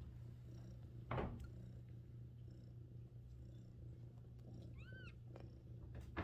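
Mother cat purring steadily while her week-old hairless kittens nurse, with one short, high kitten squeak about five seconds in and a brief soft rustle about a second in.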